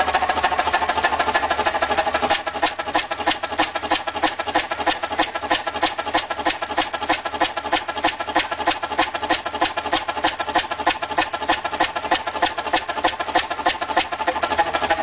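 Fairbanks Morse Model 32D stationary diesel engine running, a steady train of exhaust beats; about two seconds in the beat becomes slower and more distinct, about four or five beats a second.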